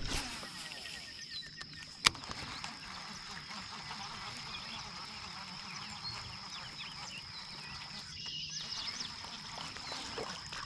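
Many short chirping calls of frogs and birds over a steady high whine, with a sharp click about two seconds in.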